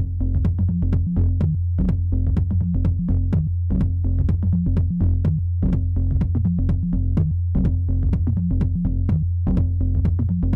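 Electronic background music with a steady drum-machine beat and a heavy bass line.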